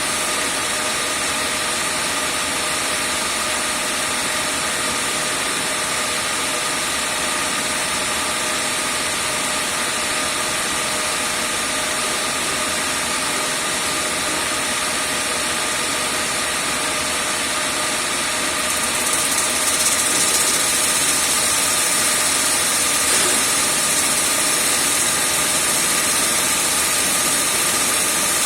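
A grinder's motor running steadily with a constant whine; about two-thirds of the way in the sound turns brighter and slightly louder.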